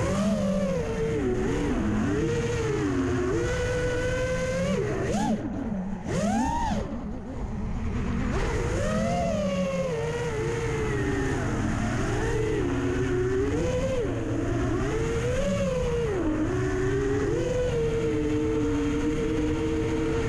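FPV quadcopter's four T-Motor F80 2500KV brushless motors and propellers whining, the pitch rising and falling constantly with the throttle, over wind rumble. About five seconds in the throttle drops briefly and the whine swoops down and back up.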